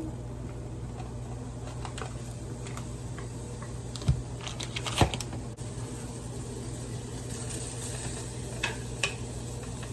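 Light kitchen handling: scattered taps and clicks of utensils and seasoning containers, with two sharper knocks about four and five seconds in, over a steady low hum.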